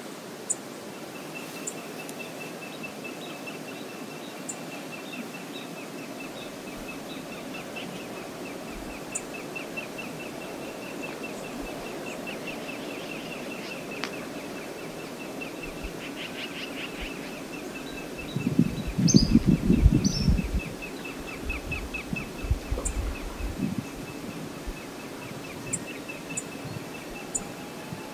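Outdoor ambience of wind and river water: a steady rush, a long run of rapid, even high ticks, and a few short high bird chirps. About two-thirds in, a gust of wind buffets the microphone with loud low rumbling for about two seconds.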